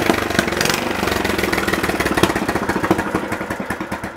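Small single-cylinder engine of a 1986 Troy-Bilt rear-tine tiller running with a rapid, even firing beat that slows and fades as the engine winds down.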